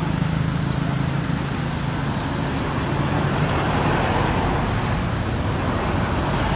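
Steady road-vehicle noise: an even rushing sound with a low hum underneath.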